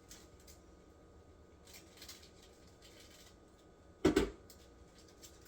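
Cheese packet crinkling faintly as it is emptied over the drained macaroni, with small clicks and scrapes and one short dull knock about four seconds in.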